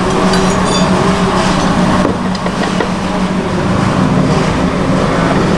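Yamaha XMAX scooter engine running at a steady speed, with a steady hum.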